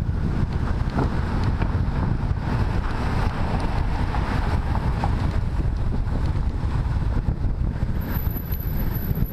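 Heavy wind buffeting an action-camera microphone held low while skating fast, mixed with the rumble of inline skate wheels rolling on asphalt. It is a steady noisy roar, and a faint high whine comes in near the end.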